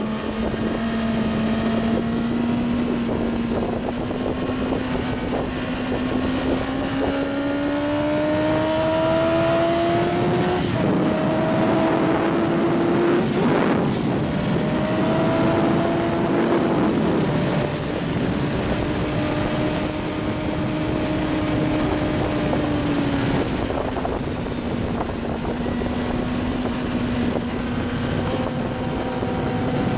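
Kawasaki ZX-9R inline-four sportbike engine running hard on track, heard from on board over a steady rush of wind. Its pitch climbs steadily for the first third, then drops in steps several times as it shifts and eases off for corners, before climbing slowly again near the end.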